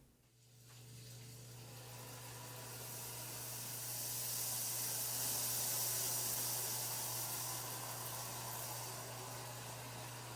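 Miele C2 Compact Electro+ canister vacuum running: airflow hiss over a steady low hum, growing louder to a peak around the middle and easing off toward the end.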